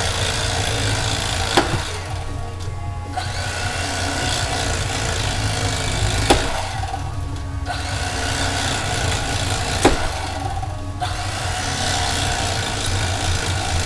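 Electric carving knife running with a steady motor buzz as it shaves the rind off a watermelon, with a sharp click about every four seconds.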